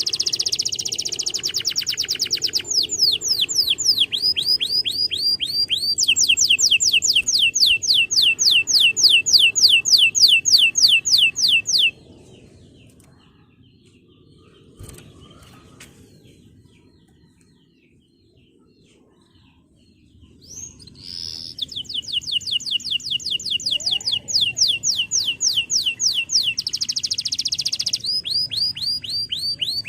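Male canary singing fast trills of repeated high, downward-sweeping notes. About twelve seconds in the song breaks off for several seconds, leaving only faint chirps, then the trills resume.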